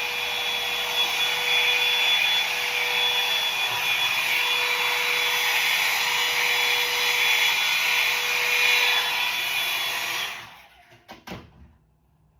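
Handheld hair dryer blowing steadily, a rushing of air with a fixed whine in it. It switches off about ten seconds in, followed by a couple of light knocks.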